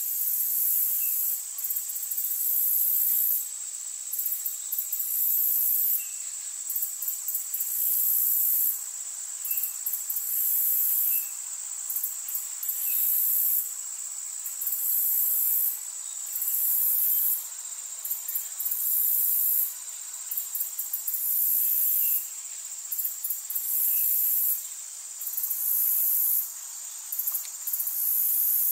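Chorus of insects buzzing very high and loud, in pulses of one to two seconds broken by short gaps, over a steady high-pitched insect drone.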